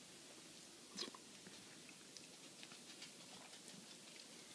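Near silence with a few faint clicks of a metal spoon against a bowl of creamy soup, the clearest about a second in, and quiet eating sounds.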